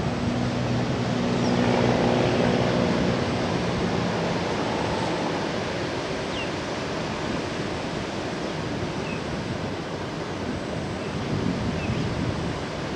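Surf breaking on the bay below, a steady wash of noise with a little wind. A low steady hum is heard over it at first and fades out over the first few seconds.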